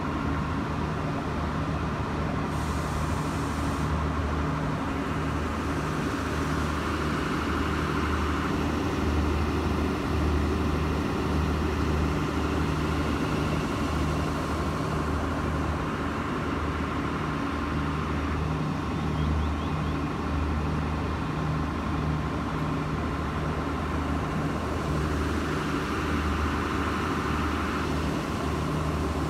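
Irish Rail 29000 class diesel multiple unit idling at a standstill, its underfloor diesel engines running with a steady low throb and a fainter steady hum above it.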